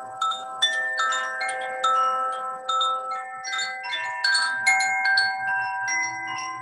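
Hand-held wind chime swung by its cord, ringing an irregular cascade of clear bell-like notes at several pitches that sustain and overlap.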